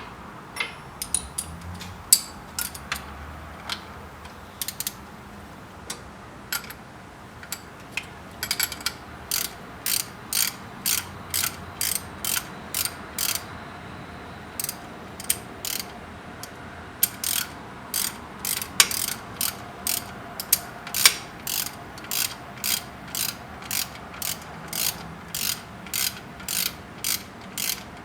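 Hand socket ratchet clicking as it turns a bolt or nut on the alternator: scattered clicks at first, then a steady run of about two clicks a second from about eight seconds in.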